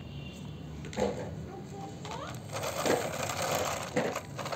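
Plastic wheels of a toy truck rolling across rough concrete, a gritty grinding rattle lasting a little over a second, with a few sharp plastic knocks. A single clack about a second in as a toy car is set down.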